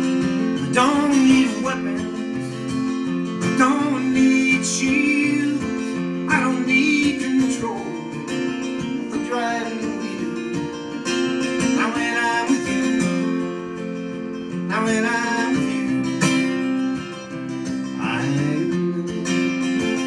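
Acoustic guitar strummed in a folk-country song, with a man's singing voice coming in over it in phrases.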